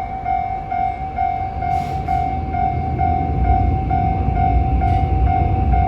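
Japanese level crossing's electronic warning bell ringing steadily at about two strikes a second, while a train rumbles past, getting louder from about halfway through.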